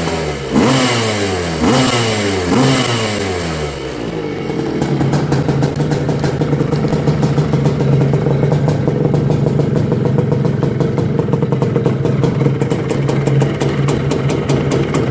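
Bultaco Pursang Mk 12 250 two-stroke single-cylinder motocross engine revved in quick throttle blips, about one a second, then settling after about four seconds into a steady, rapid-firing idle.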